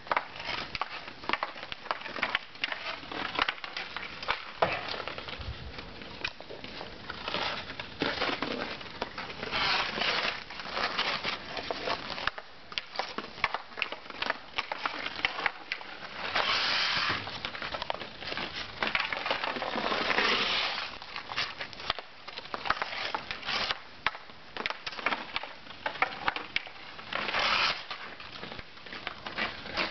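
Hockey stick blade tapping and pushing a puck on ice in quick irregular clicks, mixed with the scrape of ice skate blades. Several times the skates cut in harder, giving longer scraping hisses lasting about a second.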